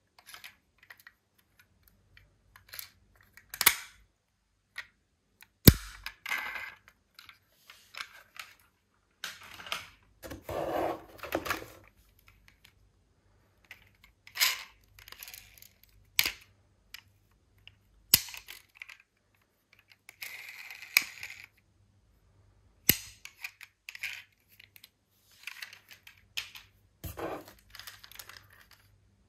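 Diecast toy cars clacking against each other and against a hard surface as they are handled and set down: scattered sharp clicks and a few short clattering rattles.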